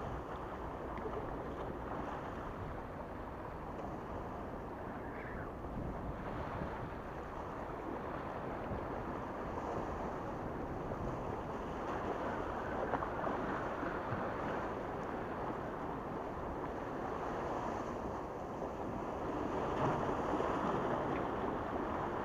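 Small waves washing against the rocks of a stone breakwater, a steady rushing that swells twice, about halfway through and near the end, with wind buffeting the microphone.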